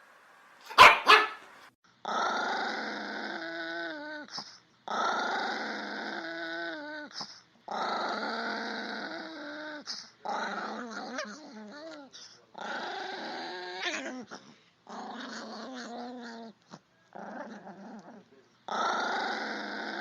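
Chihuahua growling in a run of about eight rough growls, each about two seconds long with short gaps between, several rising into a wavering, whiny pitch at the end. One sharp bark comes about a second in.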